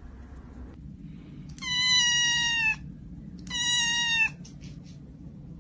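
Domestic cat giving two long meows about a second apart, each held on a steady pitch and dipping slightly at the end: a cat begging for food.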